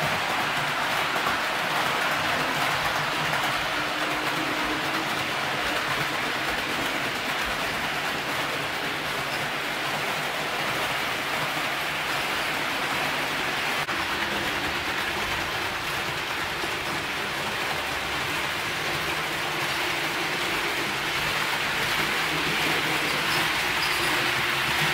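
HO-scale model train running on layout track: a steady whirring rolling noise of the cars' metal wheels on the rails, a little louder near the end as the train runs close by.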